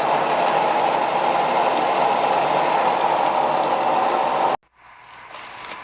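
Milling machine face-milling the gasket surface of a Volkswagen cylinder head, a steady dense machining noise. It cuts off abruptly about four and a half seconds in, leaving only faint room sounds.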